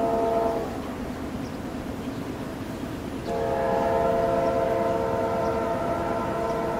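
A Norfolk Southern freight locomotive's air horn sounds a chord of several tones, heard as two long blasts. The first ends under a second in and the second starts a little over three seconds in and holds. Underneath is the low rumble of the approaching train.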